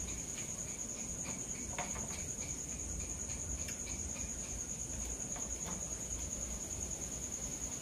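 Crickets trilling steadily at a high pitch. A second, lower insect chirps about four times a second through the first half, with a few faint clicks.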